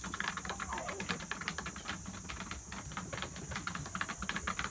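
Rapid, irregular clicking and tapping, many small strokes close together, over a low steady hum.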